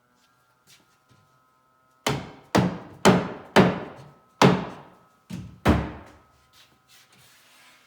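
Seven sharp knocks on the wooden parts of a ready-to-assemble cabinet, coming in a quick irregular run starting about two seconds in, as the glued floor panel is tapped down tight against the front frame.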